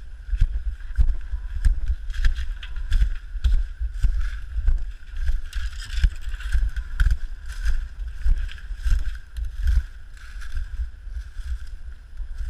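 Camera strapped to a Kishu Ken moving through bamboo and leaf litter: rhythmic knocks about twice a second as the dog moves, over a steady rumble and rustle of handling noise.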